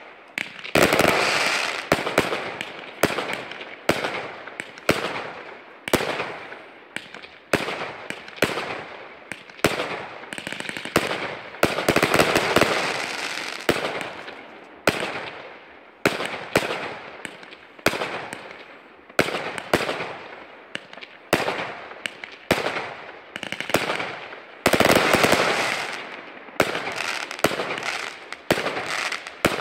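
Aerial fireworks bursting one after another, a sharp bang about every second, each trailing off, with a few denser stretches where bursts pile up.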